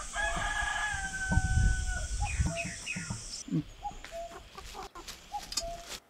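Free-range chickens: a rooster crows once, a long call held for about two seconds and sagging slightly in pitch, followed by a few short clucks.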